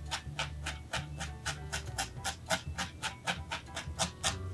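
Felting needle stabbing repeatedly through wool roving into a foam pad, an even run of short scratchy pokes about four or five a second.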